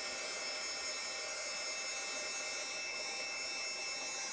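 Embossing heat tool running steadily, its small blower motor giving an even whir of air with a few steady high whining tones, as it blows hot air to melt embossing powder.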